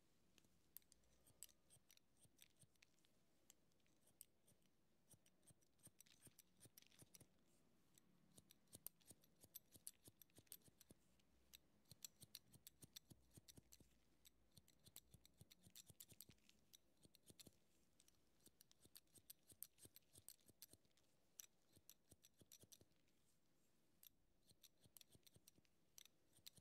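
Barber's scissors snipping through hair in quick runs of quiet snips, broken by short pauses.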